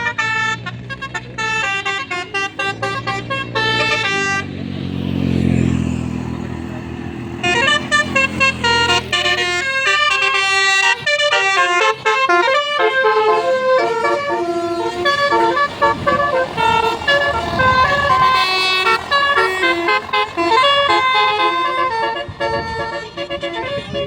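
Tour bus's 'basuri' telolet horns playing fast melodic runs of multi-tone notes, answered by more horn tunes. About four seconds in the horn pauses while the bus's engine rushes past for a few seconds, then the horn melodies resume.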